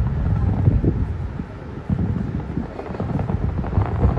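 Distant aerial fireworks going off in rapid succession, heard as a dense low rumble of overlapping booms.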